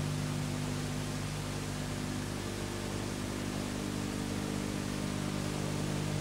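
Steady hiss with a low electrical hum underneath, from a blank stretch of an old videotape recording with no programme sound.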